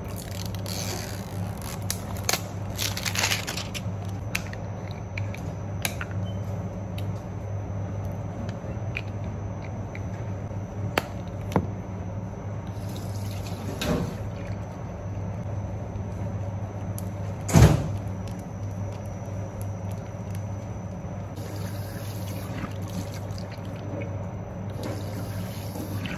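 Tap water running into a washroom sink and splashing over hands, over a steady low hum, with scattered small knocks of a bottle and packets being handled. There is one louder thump about two-thirds of the way through.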